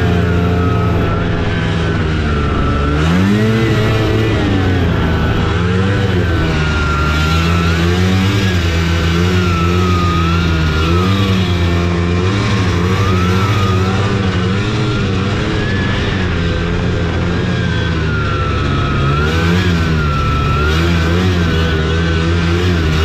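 Taiga Varyag 550 snowmobile's two-stroke engine running under way, the revs rising and falling continually, with a sharp climb about three seconds in. A high whine rises and falls along with the engine speed.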